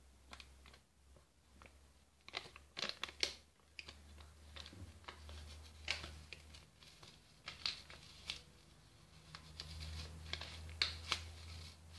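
Foil drink-mix sachet crinkling and crackling as it is squeezed and tipped over a mug to shake the powder out. It comes in irregular bursts of crackles, with a faint steady low hum underneath.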